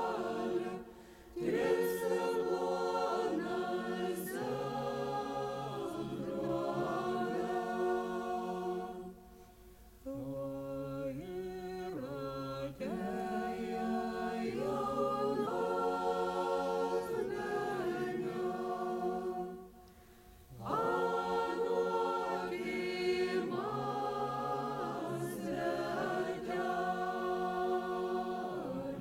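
Lithuanian folk choir of several voices singing a folk song unaccompanied, in long phrases broken by brief pauses for breath. The singing stops at the very end.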